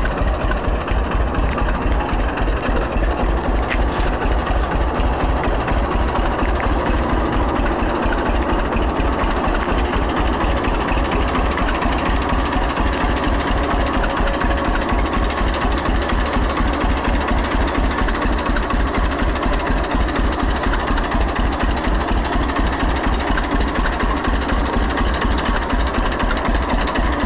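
1937 John Deere AR tractor's two-cylinder engine running steadily, an even, rapid beat of exhaust pulses that holds the same pace throughout.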